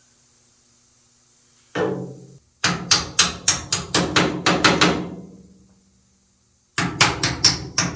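A hammer tapping rapidly on metal: a single knock, then a run of about a dozen quick even strikes, about five a second, with a low ring after each. After a pause a second run of strikes starts near the end.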